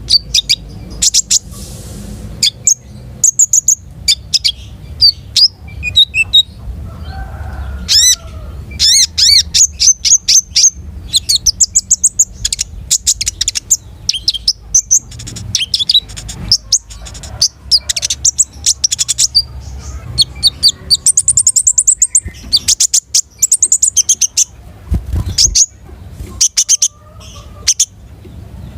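A konin songbird singing energetically in rapid runs of high, sharp chirps and fast trills, in bursts with short pauses, over a low steady background rumble.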